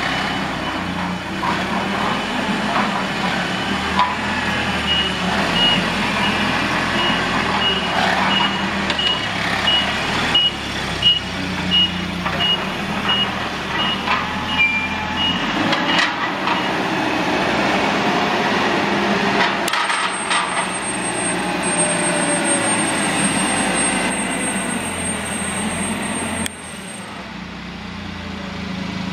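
Propane-fuelled Nissan 50 forklift's engine running as it drives and manoeuvres, with its reverse alarm beeping about twice a second through the first half. Later a thin high whine runs for several seconds as the mast is raised.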